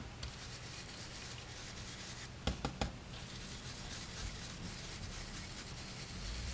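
A stiff ink blending brush scrubbing and swirling ink onto paper through a stencil, a faint steady rubbing. Three quick taps come about two and a half seconds in.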